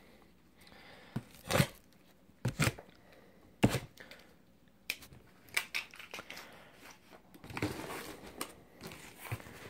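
Cardboard shipping box and its packing tape being handled and opened: a string of separate short knocks and scrapes, then a longer stretch of rustling near the end.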